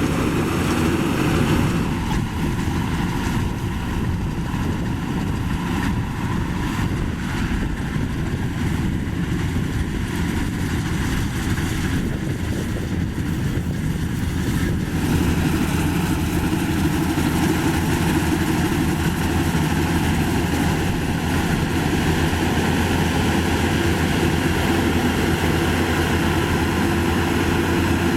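Maxxi Bimo 102 rice combine harvester running steadily with a dense, unbroken engine drone, a little heavier in tone from about halfway through.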